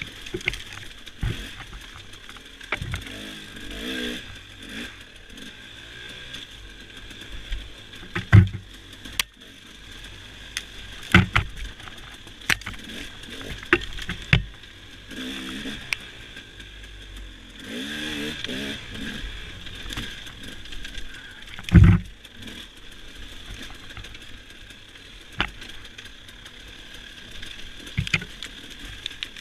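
Dirt bike engine revving up and down as it rides a rough, muddy trail, with frequent sharp knocks and thumps from the bike jolting over bumps and brush striking it. The loudest thumps come about a third of the way in and about three quarters through.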